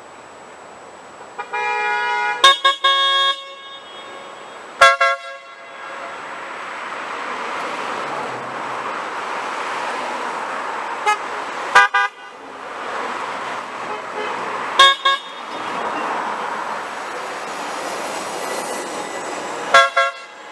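Car horns of passing drivers honking over city traffic. There is a longer blast of two horns about two seconds in, then short toots and quick double taps spread through the rest, with the rise and fall of cars driving past in between.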